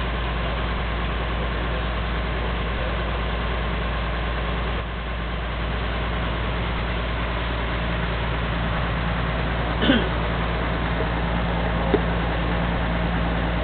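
Engine idling steadily, with a short knock about ten seconds in and a small click near the end.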